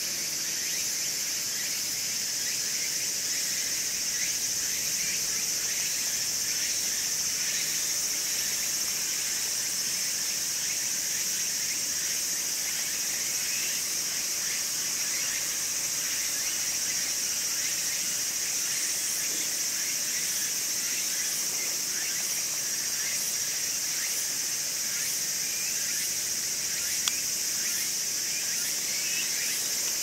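Steady, high-pitched chorus of insects, unbroken throughout, with faint scattered chirps beneath it and a single click near the end.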